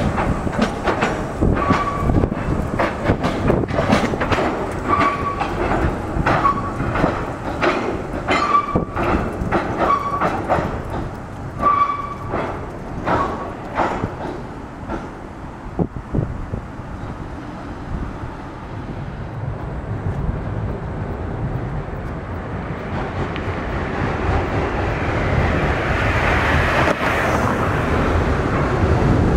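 Tram wheels clattering over a temporary 'Californian' surface crossover laid on the track. For about the first half there are rapid clicks and knocks as the wheels run over the joints and ramps, with short squeals from the wheels. The sound then dies down, and a second tram, a Škoda 15T low-floor tram, approaches with its running noise swelling near the end.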